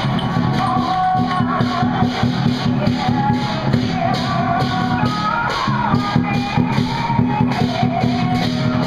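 Temple procession music: a wavering, gliding high melody over a quick, steady beat of drums and cymbals, loud and unbroken.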